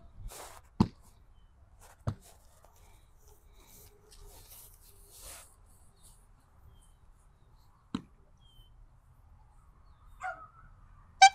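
Working protection dog giving a few short, isolated barks with long quiet stretches between them.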